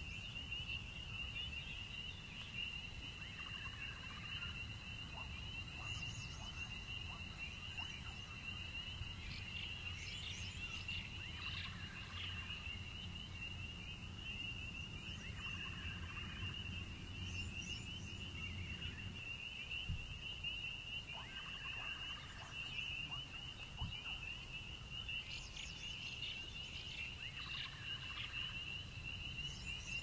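Night forest ambience: a steady, high-pitched cricket chorus trilling without a break, with short bursts of other small critter calls every couple of seconds over a low, steady rumble.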